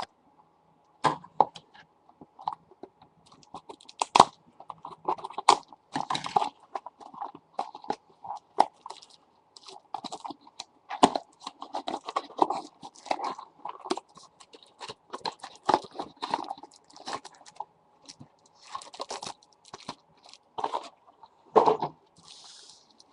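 Irregular crinkling, crackling and clicking of trading card box packaging handled close to the microphone as card packs are worked out of it.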